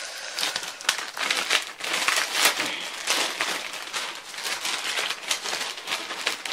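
Packaging crinkling and rustling as it is handled, a dense run of irregular crackles, while the monitor's manual is taken out of its packing.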